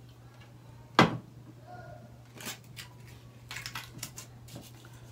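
Table-top eating and handling noises: one sharp knock about a second in, then scattered small clicks and rustles, over a steady low electrical hum.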